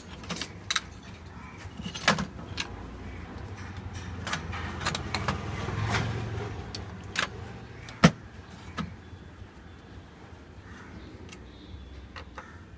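Scattered sharp clicks and taps of hand tools and parts handled on a workbench, loudest about eight seconds in, over a low rumble that swells and fades around the middle.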